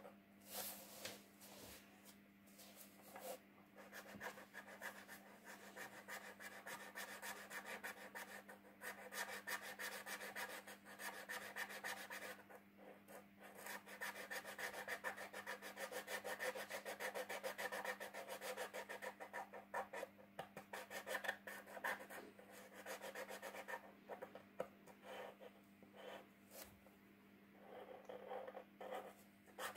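A paint marker's nib scratching on paper in quick back-and-forth colouring strokes, pausing briefly a couple of times, over a steady low hum.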